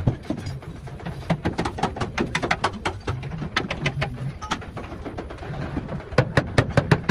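Quick, irregular knocks and taps, several a second, with short low hums in between.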